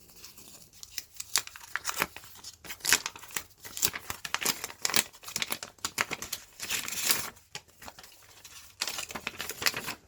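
Packaging being handled and torn open: irregular crinkling, tearing and rustling with small clicks.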